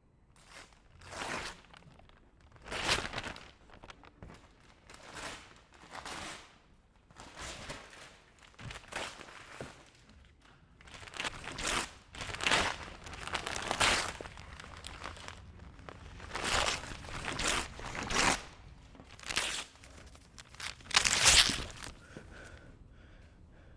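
A series of irregular crunching, rustling foley noises, each lasting about half a second, with short pauses between them; the loudest comes near the end.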